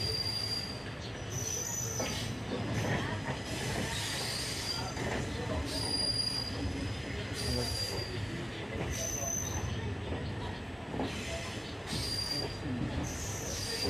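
Passenger train running along the track, heard from inside the coach: a steady rumble of wheels on rails with short, high-pitched wheel squeals every second or two.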